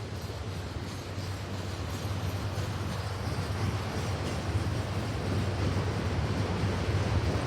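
CSX freight train rolling past: a steady rumble and rattle of the cars on the rails, growing slowly louder, with no horn.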